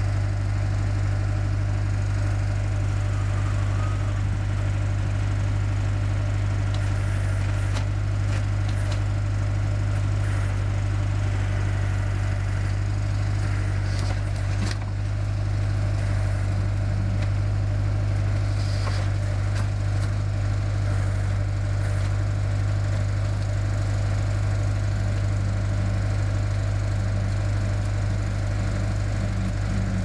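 Tractor engine running steadily at constant speed, driving the hydraulic pump of a PTO-powered backhoe while it digs. Scattered cracks and clicks come from the bucket tearing through soil and roots.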